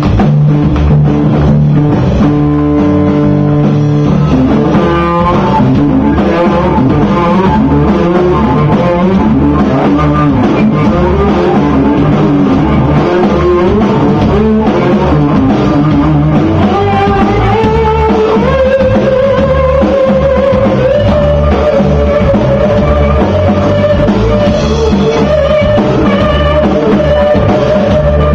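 Live rock band playing: an electric guitar melody over a drum kit. The guitar line climbs in steps about halfway through and settles into long held notes.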